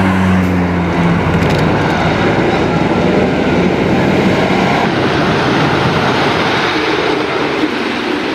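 Great Coasters International wooden roller coaster train running along its wooden track, with a loud, steady rumbling clatter. The sound shifts abruptly about five seconds in.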